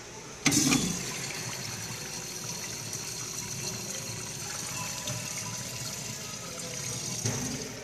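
American Standard Washbrook 1.0 gpf urinal flushing. The flush starts with a sudden burst about half a second in, water then rushes steadily through the bowl, and it shuts off just before the end.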